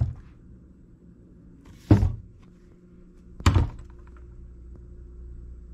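A Milwaukee M18 Fuel battery chainsaw being handled on a wooden workbench: a light knock, then two loud thunks about a second and a half apart. A low steady hum runs underneath.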